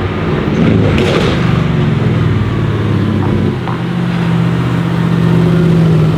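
Mercedes-AMG GT R Pro's twin-turbo V8 through a straight-pipe exhaust, pulling at low revs. Its deep note swells and holds steadier and louder in the second half.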